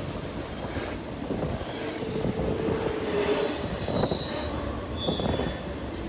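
A rumbling, crackling noise with high squealing tones over it, several in turn, each held for about a second at a different pitch.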